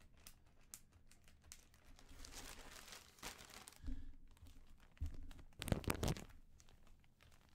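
Plastic trading-card packaging crinkling and rustling as it is handled, with several louder rubs and knocks about four to six seconds in.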